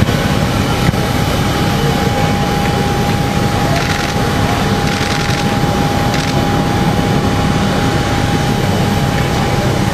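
A parked jet aircraft running on the apron: a steady, unbroken whine over a low rumble.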